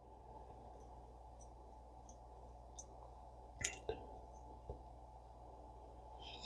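A few faint, small clicks of a screwdriver and small metal reel parts, a little past the middle, as the screw holding the crosswind axle shaft of a spinning reel is worked out. Under them, a steady low hum.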